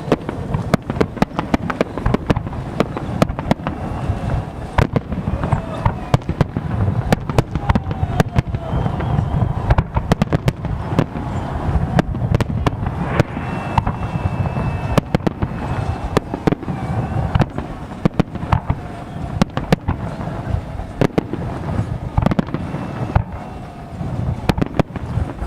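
Fireworks salute going off: a dense, continuous string of sharp bangs and crackles, several a second, over a steady low rumble.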